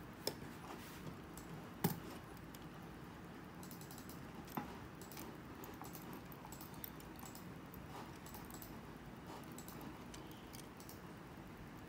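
Light clicks and small metallic rattles from a die-cast alloy 1:10 scale model racing bicycle being handled and its wheels turned by hand. There are a few sharper clicks in the first five seconds, the loudest about two seconds in.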